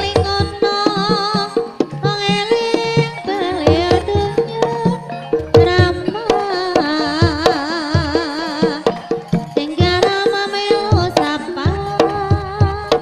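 Ebeg accompaniment music: a Javanese Banyumasan ensemble with deep hand-drum (kendang) strokes in a driving rhythm under a pitched melody, with singing in a wavering voice.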